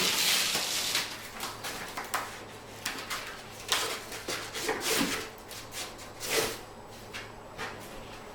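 Rustling, crinkling and rubbing of a peel-and-stick edge strip being handled, peeled and pressed into place, in irregular scrapes and crackles, over a faint steady hum.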